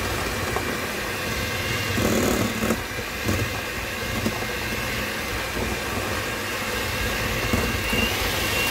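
Electric hand mixer running steadily, its beaters mashing boiled plantain in a stainless steel bowl, with a steady high motor whine and a few knocks of the beaters.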